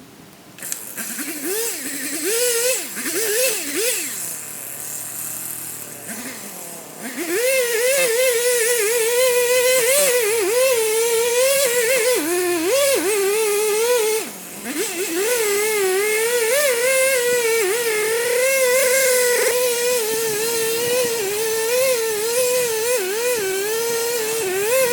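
Chainsaw revved in a few short blips, then held at high speed under load through a felling cut in a large yellow pine, its pitch wavering as the chain bites. It drops briefly about two-thirds of the way through before climbing back.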